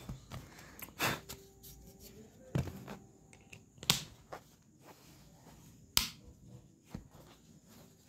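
Handling of a small plastic keypad phone: about five sharp clicks and taps a second or so apart as it is tapped and turned over, with quiet rubbing between.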